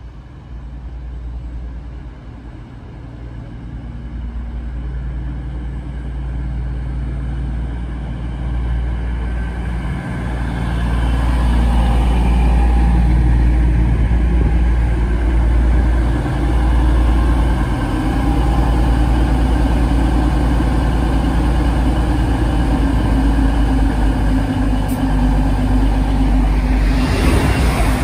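East Midlands Railway Class 222 Meridian diesel multiple unit approaching and running along the platform. The drone of its underfloor diesel engines and the wheel-on-rail noise grow louder over the first dozen seconds, then hold steady and loud as the carriages go by.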